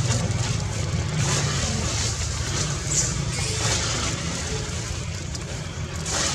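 Steady rumbling, hissing background noise with no clear single source, swelling and fading every second or two.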